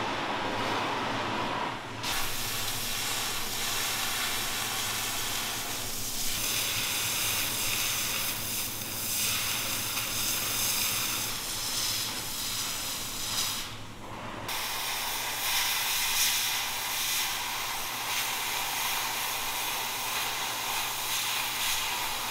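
Oxy-fuel cutting torch hissing steadily as it cuts through steel plate, the hiss growing stronger about two seconds in. It breaks off briefly a little over halfway through, then resumes.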